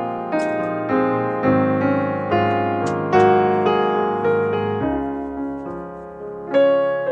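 Background piano music: a slow melody of single notes and chords, each struck and left to fade, with a short lull about five seconds in.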